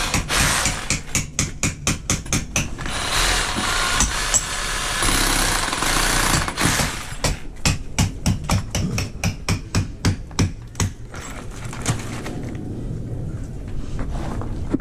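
Runs of sharp, evenly spaced knocks, about four a second, with a spell of a cordless drill/driver running between them, as screws go into a timber door lining.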